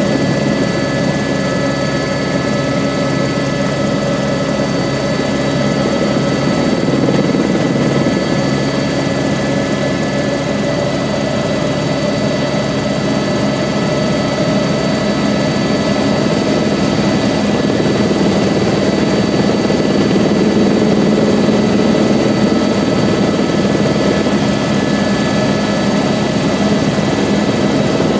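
Airbus H125 (AS350 B3e) helicopter in cruising flight, heard from inside the cabin: a steady, loud drone of rotor, single turboshaft engine and gearbox with several thin high whining tones over it.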